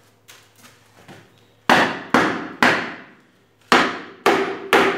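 A hammer striking the top of a wooden chair leg. A few light taps come first, then six sharp blows in two groups of three, each with a brief ring.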